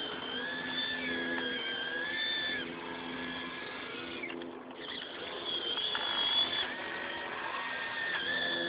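Radio-controlled Hitachi EX200 model excavator working its arm and bucket in gravel: a high motor whine that shifts up and down in pitch as the arm moves, dropping out briefly about halfway through.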